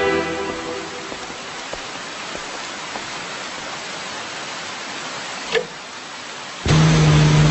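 Steady hiss of rain as background music fades out in the first second, with one short sharp sound about five and a half seconds in. Near the end a loud car engine and music start abruptly.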